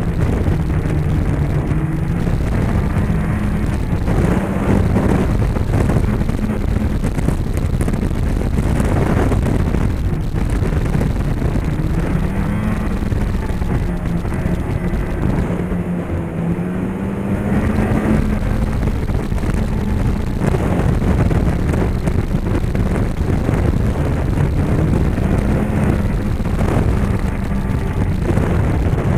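2010 Polaris Rush 600 Pro-R snowmobile's two-stroke twin engine running under way, its pitch rising and falling as the throttle is worked, easing off briefly about halfway through.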